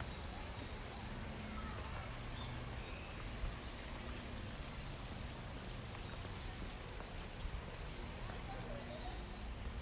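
Quiet outdoor park ambience: a steady low rumble with a few faint, scattered bird chirps.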